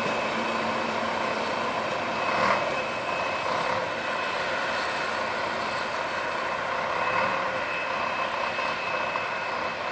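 Passenger train running away from the station with a steady rumble and rail noise, with one short louder sound about two and a half seconds in.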